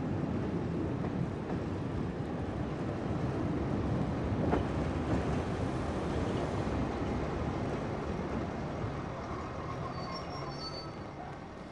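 Train running on the rails: a steady rumble of wheels and running gear that slowly fades towards the end.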